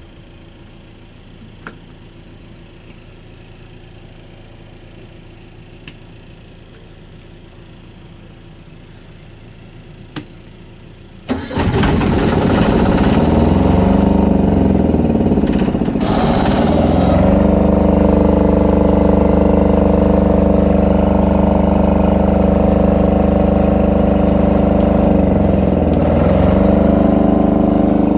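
An engine starts about eleven seconds in and then runs steadily and loudly, its pitch dipping briefly a couple of times, with a short hiss about five seconds after it starts. Before it starts there are only a few faint clicks.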